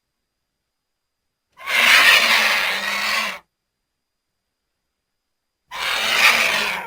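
Lappet-faced vulture giving two harsh hissing calls with a low growl underneath, the first about two seconds long and the second about a second long near the end.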